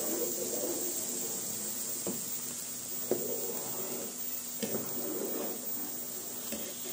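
Metal ladle stirring liquid in a large aluminium pot, scraping and swishing, with a few sharp clinks of the ladle against the pot, over a steady hiss.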